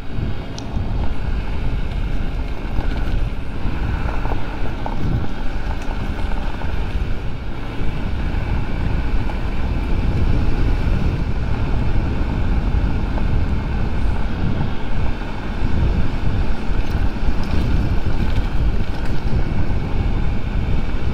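Honda Ruckus scooter riding steadily at about 20 mph on a gravel road: its small four-stroke engine runs under a heavy buffeting of wind on the microphone, with the rumble of tyres on gravel.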